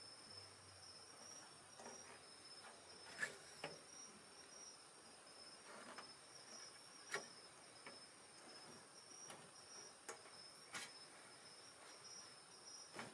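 A steady, high-pitched chorus of night insects, with a wood campfire crackling now and then in sharp pops. The loudest pops come about 3 and 7 seconds in.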